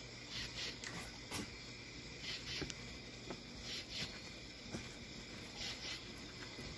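Dwarf caiman snapping up and gulping a small fish, heard as a few faint sharp clicks of its jaws. Under them run a steady low hum and soft hissing that comes and goes about every second and a half.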